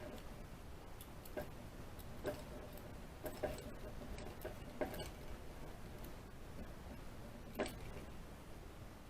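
Lock-picking rake and tension wrench working the pin tumblers of a Master Lock No. 3 laminated steel padlock: a few sharp, irregular metal clicks over a faint scraping background as the pins are raked.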